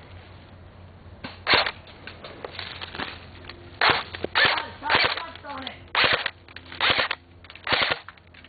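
Airsoft guns firing: about seven loud, sharp shots or short bursts, starting about one and a half seconds in and coming roughly once a second.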